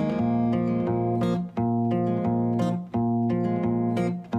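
Background music of strummed acoustic guitar, the chords changing about every second and a half.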